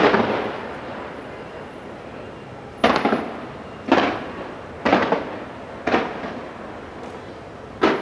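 Aerial firework shells bursting. A bang right at the start trails off slowly, then four bangs come about a second apart from about three seconds in, and another falls just before the end.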